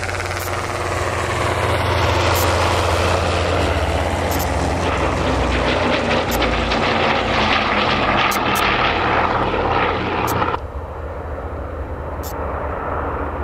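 Douglas DC-6's four Pratt & Whitney R-2800 radial piston engines and propellers droning steadily as the airliner flies past. About ten and a half seconds in, the sound drops abruptly to a fainter, more distant drone.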